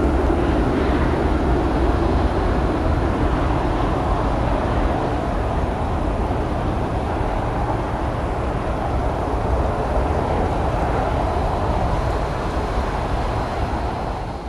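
Jet engine noise of an Airbus A350's Rolls-Royce Trent XWB engines as the airliner rolls along the runway, a steady, deep rumble and rush that slowly fades toward the end.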